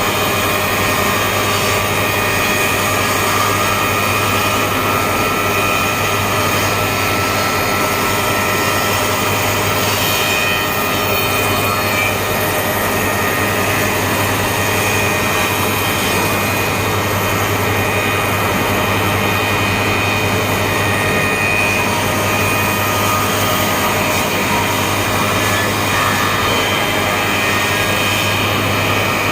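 Six-head wood moulding machine running, its motors and spinning cutter heads making a loud, steady hum and whine without a break.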